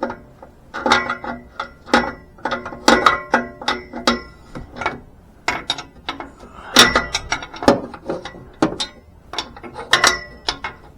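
A hand wrench on metal, clicking and clinking in irregular runs with a ringing metallic tone, as the old exhaust oxygen sensor is worked loose.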